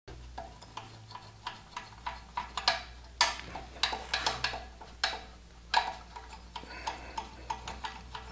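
BMW R1250GS exhaust butterfly valve being rotated back and forth by hand at its spring and pulley, its freshly copper-greased shaft working in the housing, giving irregular metallic clicks and ticks.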